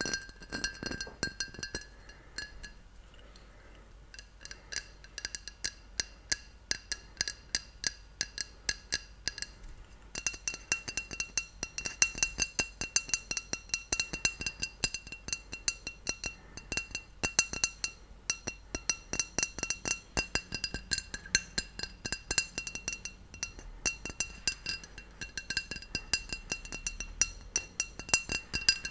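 Fingernails tapping rapidly on a glass bottle close to the microphone, each tap leaving a clear ringing pitch. The taps thin out briefly about three seconds in, then pick up again.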